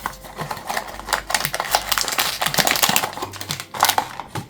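Blind-box packaging being opened and handled by hand: a quick, uneven run of clicks and crinkles from cardboard and wrapping.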